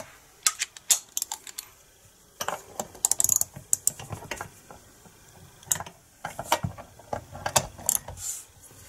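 Irregular light metallic clicks and rattles of hand tools and parts being handled on a chainsaw, in several short clusters with quiet gaps between them.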